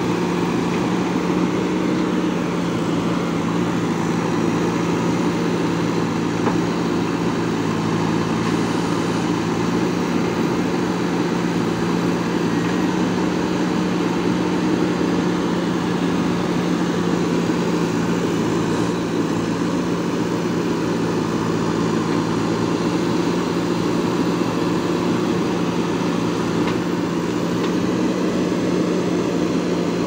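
JCB 3DX backhoe loader's four-cylinder diesel engine running at a steady speed while the backhoe arm digs and swings wet soil.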